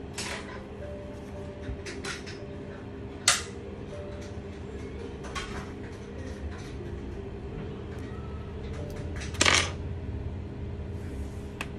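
Small metal tools clinking and tapping on a workbench, a few scattered sharp clicks with the loudest about three seconds in and about nine and a half seconds in, over a steady low electrical hum.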